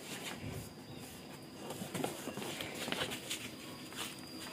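Cardboard box flaps and a foam packing sheet being handled: scattered light rustles and soft knocks, busier in the second half.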